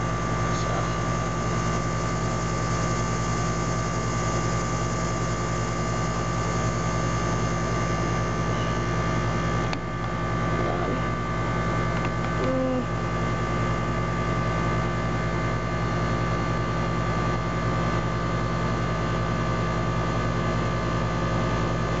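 Carrier central air conditioner's outdoor condensing unit running: a steady hum of the compressor with the condenser fan's rushing air, under a heavy heat load.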